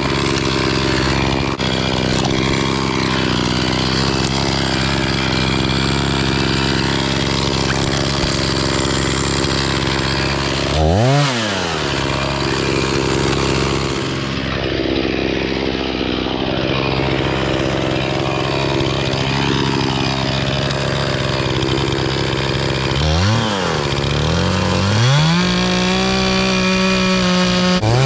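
Gas chainsaw running and cutting maple wood, its engine note steady under load. The revs drop and climb back about eleven seconds in, and again about twenty-three seconds in, as the throttle is let off and squeezed again.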